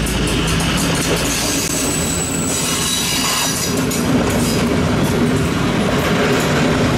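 MÁV M62 diesel locomotive and its train moving along the track: the steady drone of its two-stroke V12 diesel over wheel clatter on the rails, with a brief high-pitched wheel squeal near the middle.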